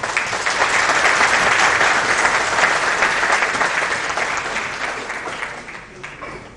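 Audience applauding, starting at once and dying away over the last couple of seconds.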